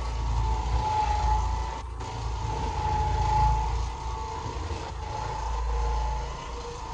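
Oreck Orbiter orbital floor machine running steadily as it scrubs carpet with a pad, its motor giving a low rumble and a wavering high whine. The sound swells and eases every few seconds as the machine is worked back and forth.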